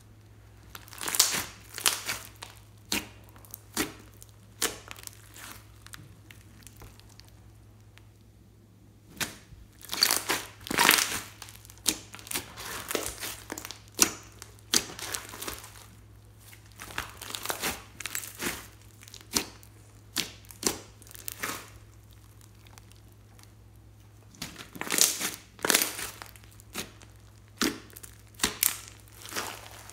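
Hands kneading and squeezing glossy slime mixed with foam beads (floam): irregular clusters of sticky clicks and pops as the slime is pressed and pulled, with a quieter lull about five to nine seconds in.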